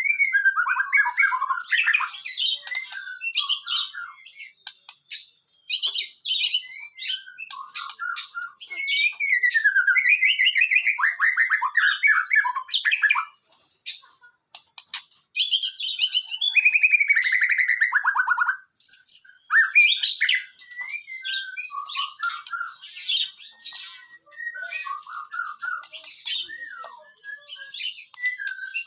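White-rumped shama (murai batu) singing a long, varied song of rising and falling whistles, fast trills and scratchy notes, with short breaks about five and fourteen seconds in.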